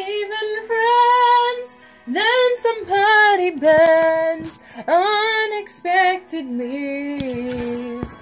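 A woman singing long held notes with vibrato and sliding, mostly wordless phrases over a soft musical backing, in a pop ballad duet.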